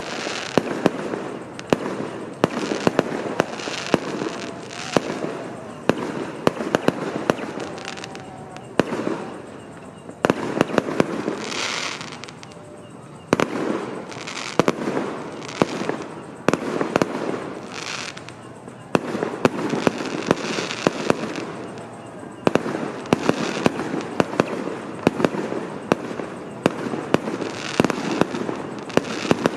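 Fireworks going off in quick succession: many sharp bangs over a constant crackle, with a few brief lulls.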